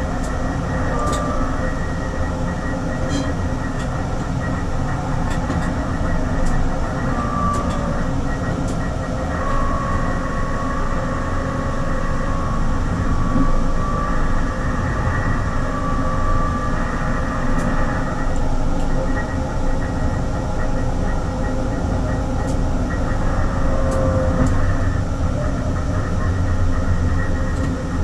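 Oslo SL95 tram running along its track, a steady rumble with a thin high tone that comes and goes in the middle.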